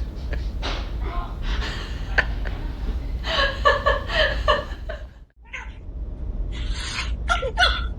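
Domestic cat meowing: a run of drawn-out calls in the middle, a brief break, then more short calls near the end.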